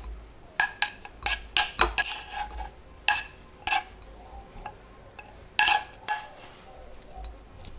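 A utensil clinking and scraping against a pan as hot stir-fried tofu and carrots are scooped onto a plate: a quick run of sharp, ringing clinks in the first couple of seconds, two more about three and four seconds in, and a few more around six seconds.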